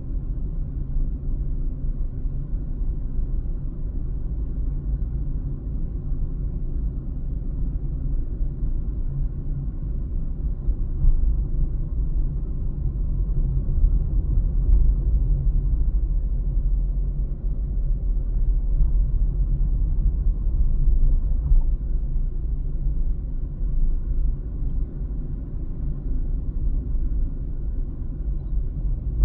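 Steady low rumble of a car driving slowly, heard from inside the cabin: engine hum and road noise.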